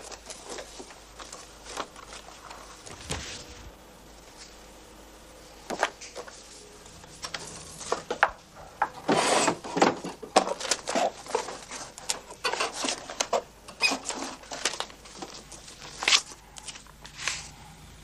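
Papers rustling and being shuffled as they are searched through at a desk, with scattered knocks and clicks of things being handled; the busiest handling comes about halfway through.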